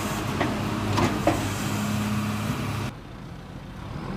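JCB Loadall telehandler's diesel engine running close by, with a few knocks in the first second and a half. About three seconds in the sound drops suddenly to a quieter, more distant engine.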